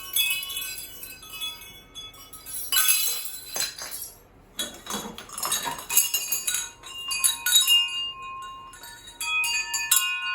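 Secondhand wind chimes being handled, their chimes clinking together and ringing at several pitches, with rustling twice as they are moved about.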